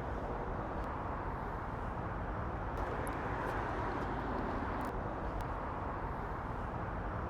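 Steady outdoor urban ambience dominated by distant road traffic: a continuous low rumble with no single vehicle standing out and a few faint ticks.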